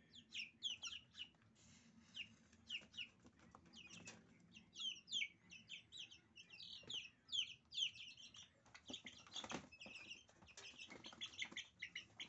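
A brood of 20-day-old Silkie chicks peeping continuously, many short falling peeps overlapping one another. A brief knock comes about nine and a half seconds in.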